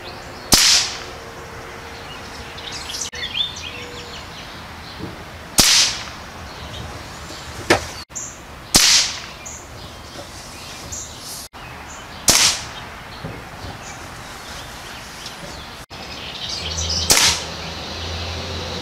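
ATI/Nova AT-97 Elite break-barrel air rifle firing .177 pellets: five sharp cracks a few seconds apart, each with a short ring.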